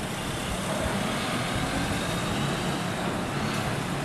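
Tow truck's engine running steadily, a low even hum under a constant hiss.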